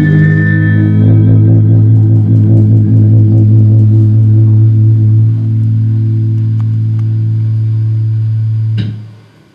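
Electric guitar through an amplifier, low notes picked rhythmically and then left to ring as a held chord, cut off sharply with a click near the end. A high held tone fades out in the first second.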